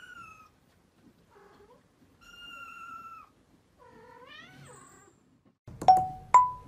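Kittens mewing softly: a few thin, high calls, the last one rising in pitch. Near the end come two loud, short plinking tones, the second higher than the first.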